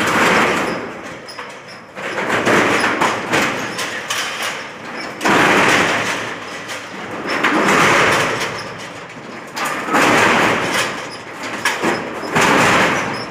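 Corrugated steel rolling shutter worked up and down by hand on a new installation, its slats rattling and scraping through the side guides in a run of swells about every two seconds.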